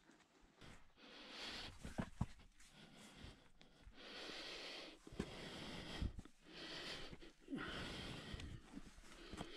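A person breathing hard with effort, several long noisy breaths a second or so apart, while climbing through a narrow rock crevice. A few short knocks and scrapes of hands and pack against the rock.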